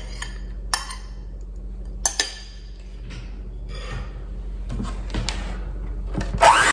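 A few light clinks and knocks of a ceramic bowl and a glass mixing bowl being handled on a countertop, over a low steady hum. Just before the end, a brief rising whir as an electric hand mixer with whisk beaters starts up in the bowl.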